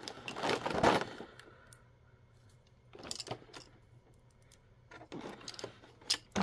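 Small plastic miniature toy pieces being handled against a clear plastic display case: rustling and clicking in the first second, a short clatter about three seconds in, and a few sharp clicks near the end.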